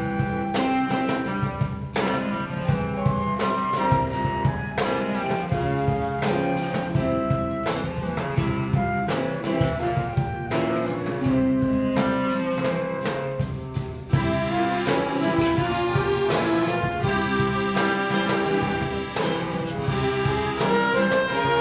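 Klezmer ensemble playing live: accordions, clarinets, flute and cello carry the melody over guitars strumming a steady beat. The sound dips briefly about two-thirds of the way through, then the full band comes back in.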